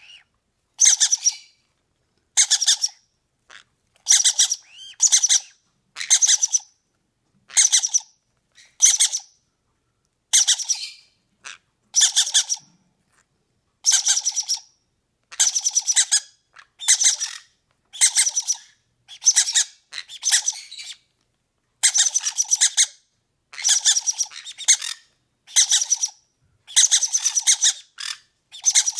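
Green-cheeked conure chicks begging to be fed: rapidly pulsing, raspy calls about half a second long, repeated roughly every second.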